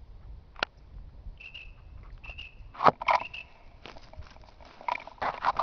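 Footsteps crunching through dry leaf litter and undergrowth with twigs snapping, the loudest crack about three seconds in and a cluster of crackles near the end. A few brief high tones sound among the steps.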